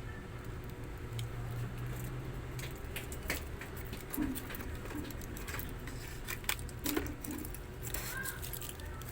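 Scattered light clicks and rustling of small items and packaging being handled, over a faint low hum.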